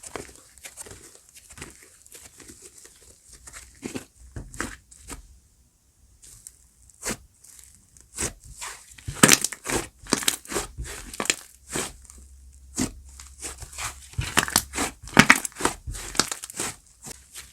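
Slime being pressed, stretched and poked by hands, giving quick irregular sticky crackles and pops. There is a short lull, then two denser, louder flurries of crackling.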